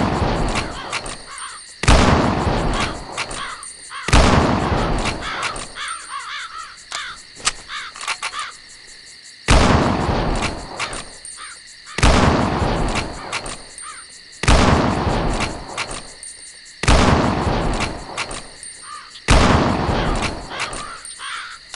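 Remington Model 700 bolt-action hunting rifle fired seven times, about every two and a half seconds with one longer pause after the second shot. Each shot trails off in a rolling echo of about two seconds.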